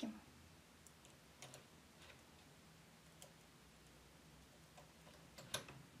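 Near silence with faint, sparse clicks of a latch tool against the metal needles and latches of a knitting machine as fur yarn is chained off the needles in a loose bind-off. A few clicks close together, slightly louder, come near the end.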